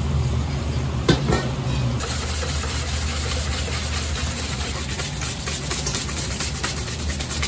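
Wire balloon whisk beating egg-yolk batter in a large stainless steel bowl, a quick run of fine ticks, over the steady hum of kitchen ventilation. A single sharp clank about a second in.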